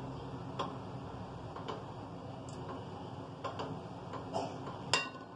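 Cooking oil poured from a plastic jug into an aluminium pot: light scattered ticks over a steady low hiss, the sharpest tick about five seconds in.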